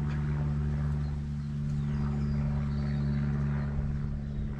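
A steady low mechanical hum that holds one pitch throughout, with a faint rumble beneath it.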